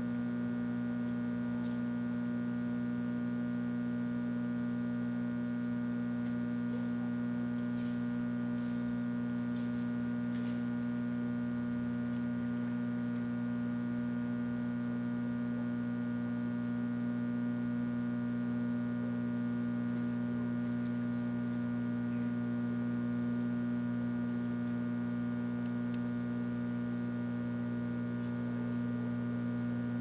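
Kenmore microwave oven running: a steady low electrical hum from its transformer and magnetron, unchanging throughout.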